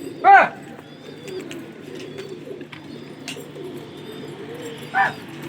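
Many pigeons cooing together in a steady low, warbling chorus. Two short, loud calls cut through it, each rising then falling in pitch: one just after the start and one near the end.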